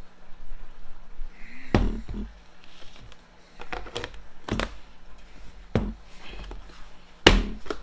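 A plastic storage-bowl lid being pressed down onto the bowl by hand: a handful of sharp plastic clicks and knocks as it snaps on around the rim, the loudest near the end as the lid is pushed shut and sealed.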